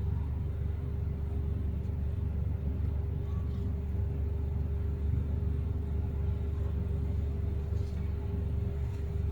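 Flame-effect aroma humidifier running: a steady low hum with one constant tone held throughout.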